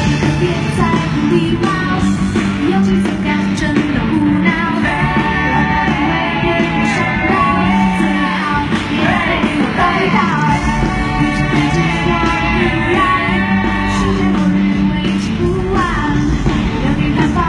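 Music with a singing voice over a steady bass line.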